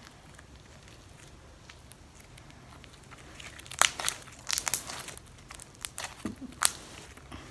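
A small slime with sprinkles being stretched and squished between the hands. After a quiet start it gives a run of short sticky clicks and pops about halfway in.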